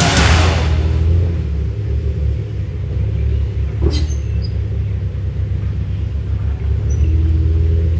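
A Jeep's engine running at low revs under load as it crawls up a rocky trail, with a rush of noise dying away in the first second and a single sharp click about four seconds in.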